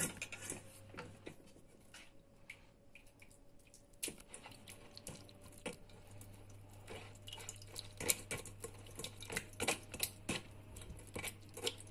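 Plastic slotted skimmer scraping and pressing soft cooked cherry plums through a wire-mesh strainer: irregular soft clicks and wet squelches, sparse at first and busier from about halfway on.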